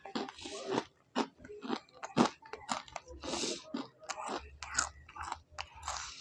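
Close-miked chewing of crunchy food: a quick, irregular string of sharp crunches and mouth sounds, picked up on a lapel microphone.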